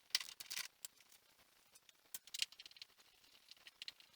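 Light clicks, taps and rustling of hands handling small parts, with a cluster of rustles at the start and a few sharper clicks about two seconds in.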